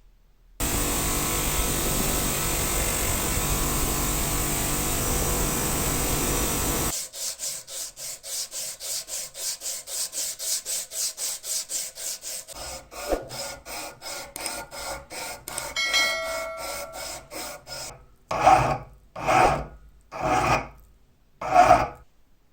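A steel padlock shackle being rubbed by hand with an abrasive, in quick even back-and-forth strokes about four a second, then four slower, heavier strokes near the end. Before the strokes start there is a steady loud hiss lasting about six seconds.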